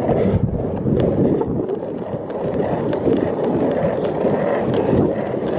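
Longboard wheels rolling over rough, cracked asphalt: a steady rolling rumble.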